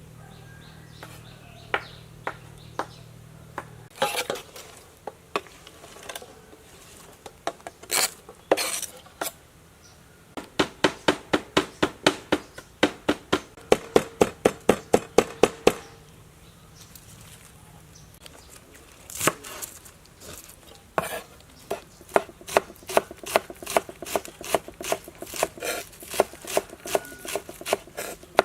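Knife chopping food on a cutting board: a few separate knocks at first, then long runs of quick, even strokes, about four a second.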